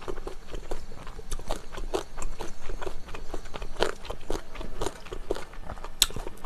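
A person chewing a mouthful of chewy, wide Chinese glass noodles in spicy sauce, a dense, irregular run of short wet mouth smacks and clicks.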